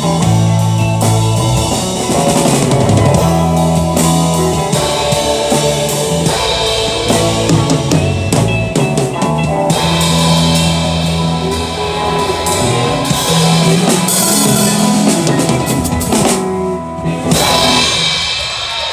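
Live rock band playing loudly: drum kit, electric guitar and bass, with a brief break near the end followed by one more hit.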